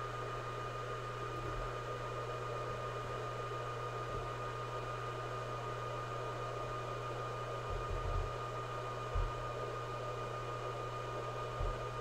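ZimaCube NAS prototype running, its cooling fans giving a quiet steady whir with a thin constant whine and a low hum beneath. A few soft low thumps come in the second half.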